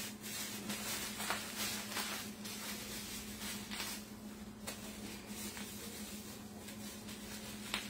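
Thin plastic bag crinkling and rustling faintly in the hands as it is twisted and knotted shut, over a steady low hum.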